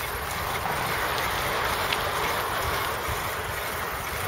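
Wind noise on the microphone: an uneven low rumble over a steady outdoor hiss.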